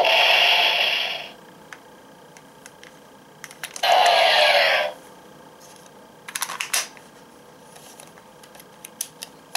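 Hopper Zecter toy transformation belt playing electronic sound effects: a loud one that stops about a second in, and another of about a second, with sweeping pitch, about four seconds in as the lit Zecter is pressed. Between and after them come sharp plastic clicks and rattles as the toy is handled and the Zecter is taken off the belt.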